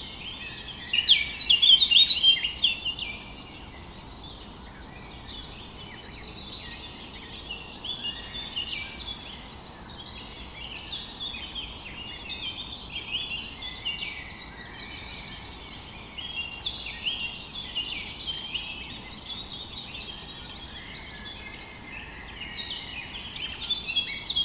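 A chorus of many small birds chirping and singing, dense and unbroken, swelling louder about a second in and again near the end.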